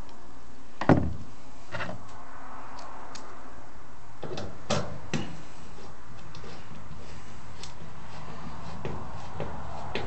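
Knocks and clicks of a tool and metal parts against a dryer's metal back panel and terminal block as a power-cord wire is fastened. The loudest knock comes about a second in, with a few lighter ones near the middle, over a steady background hiss.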